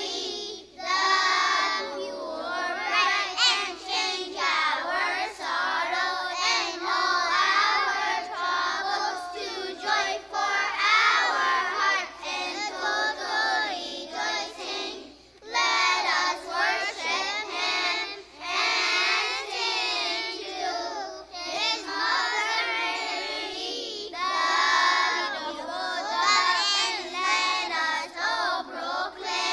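A group of young children singing a hymn together, with no instruments, in phrases with short breaths between them.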